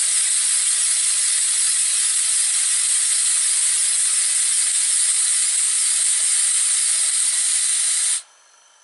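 Model diagonal paddle steamer engine running on compressed air: a loud, steady hiss of air rushing through it while it runs far too fast, the air supply giving no real control of its speed. The hiss cuts off suddenly near the end.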